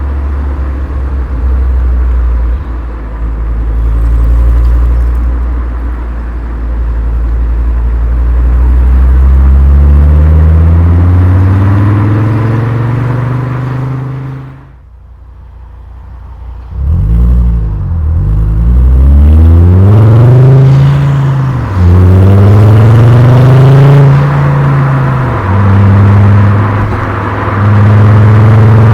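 Volkswagen Golf Mk4 VR5's five-cylinder engine and exhaust while driving: it pulls steadily up through the revs for about fourteen seconds, then goes briefly quiet as the throttle is lifted. After that the revs rise and fall several times through gear changes.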